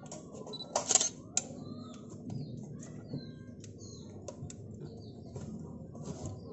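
A Canon DSLR firing its shutter, a sharp double click about a second in followed by a lighter click, then scattered small mechanical clicks while a Canon EF-S 10-22mm lens with a freshly repaired autofocus is tested.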